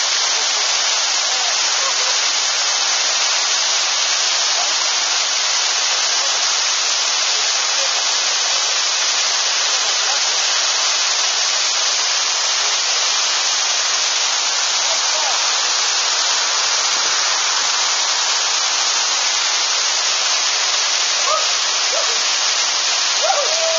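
Large waterfall plunging into its pool, heard up close at its base: a loud, steady rush of falling water and spray that does not change. Faint voices come through near the end.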